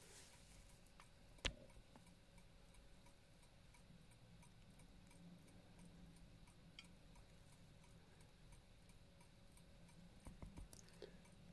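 Faint, steady ticking of a clock's escapement, with one sharper click about a second and a half in and a few soft knocks near the end.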